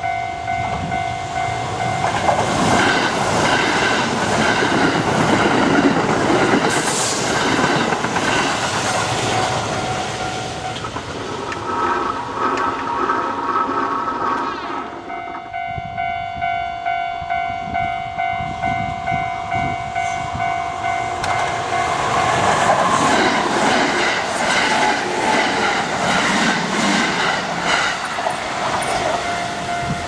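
Japanese level-crossing alarm bells ringing in a steady pulsing ding-ding, while Kintetsu electric trains rumble and clatter over the crossing twice. The first train passes about two seconds in, the second about two-thirds of the way through.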